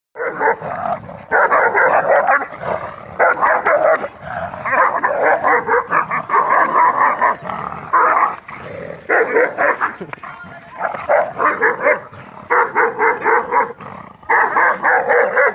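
Bully dog barking in quick runs of repeated barks, several bouts broken by short lulls.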